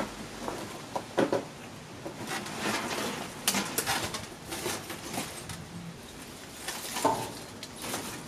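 Knocks, scrapes and rustling as a padded seat and a metal wire bed-spring frame are shifted about among brambles and rubble. The sharpest knocks come about a second in and again near the end.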